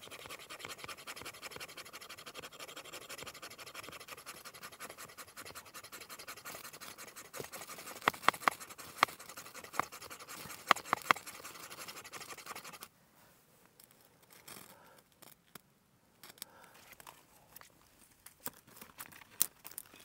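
Rapid, continuous scraping of a striker along a ferro rod into a pile of dry leaves and tinder to throw sparks for lighting a fire, with a few sharper, louder strikes between about eight and eleven seconds in. The scraping stops about thirteen seconds in, leaving faint crackles and rustling.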